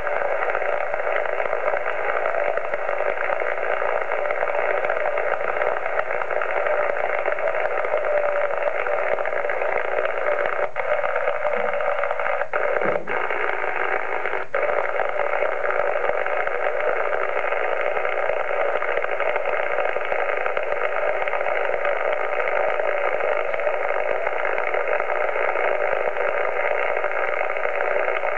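Steady hiss of band noise from a transceiver receiving upper sideband on 27.580 MHz, the 11-metre band, held to the narrow voice passband of the receiver. About halfway through, a few sharp clicks sound as buttons on the radio's front panel are pressed.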